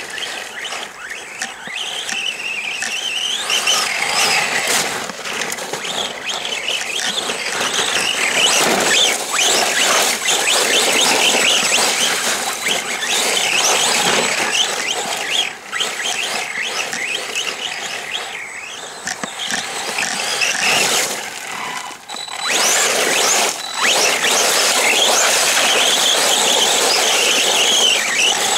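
Arrma Senton 3S BLX radio-controlled short course truck being driven hard: its brushless electric motor whines, rising and falling in pitch with the throttle, over the rush of its tyres on mud and gravel, dropping away briefly twice as the throttle is lifted.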